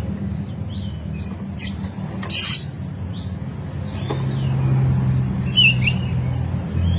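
A low, steady engine rumble that grows a little louder about four seconds in. Over it, an oriental magpie-robin gives scattered short chirps, a harsh scratchy call about two and a half seconds in, and a brighter pair of chirps near the end.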